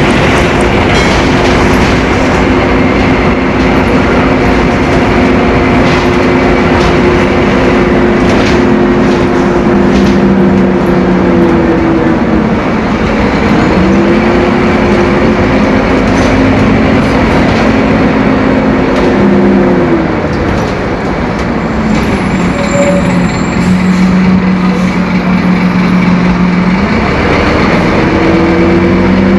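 Scania K-270's five-cylinder inline turbo diesel running loud under load. Its note holds steady, drops and climbs back about twelve seconds in, drops again about twenty seconds in, stays lower for a while, then climbs again near the end.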